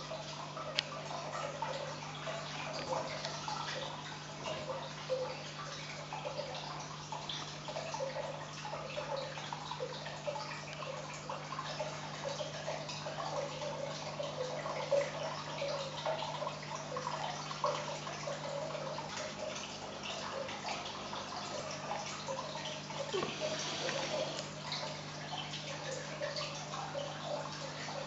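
Sand hoppers (Talitrus saltator) swarming over a terrazzo floor: a dense, irregular pattering of tiny ticks as they jump and land, over a steady low hum.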